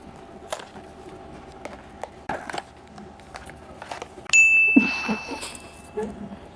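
Scattered light clicks and rustles of a blind box and its packaging being handled, then a sudden bright ding about four seconds in that rings on a single high note for over a second.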